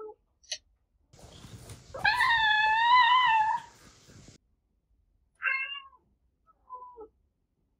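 Domestic cats meowing in a string of separate clips: one long, wavering meow about two seconds in, then two short meows near the end.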